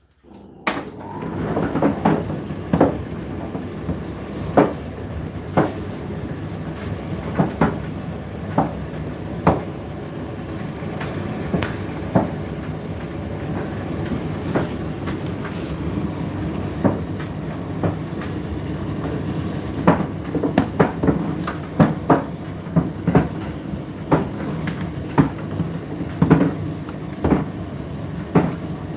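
Indesit IDC8T3 condenser tumble dryer starting up about a second in, then its drum turning with a steady motor hum and irregular knocks of the load tumbling against the drum. The sound drops off right at the end.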